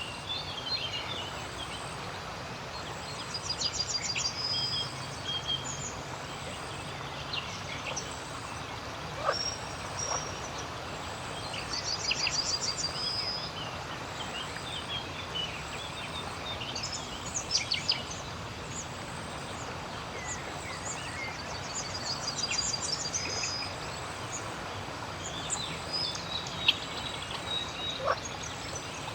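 Riverside ambience: birds calling and chirping, with several rapid trills, over a steady background hiss. A few short, lower calls stand out here and there, which fit frogs calling.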